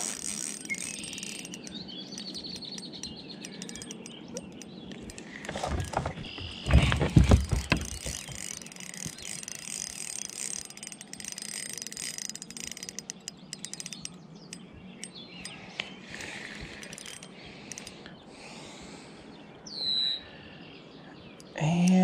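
Light spinning reel ticking and clicking as it is worked against a hooked channel catfish, with a few louder knocks about six to eight seconds in. A bird calls once near the end.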